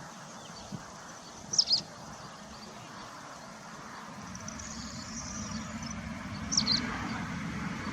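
Two brief, high double chirps, one about a second and a half in and one near the end, like a small bird calling. Under them runs a steady outdoor rumble that grows louder in the second half. Nothing like a horse's whinny or snort is heard.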